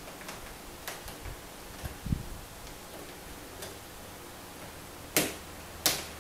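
An African grey parrot's beak clicking and tapping on a plastic dish-drying rack: scattered light clicks, a soft thump about two seconds in, then two louder sharp knocks near the end.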